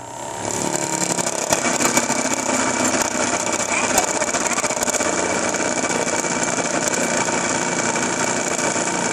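Home cotton candy machine's electric motor spinning its spinner head, coming up to speed in the first second and then running with a steady hum, while the melted candy is spun out into floss.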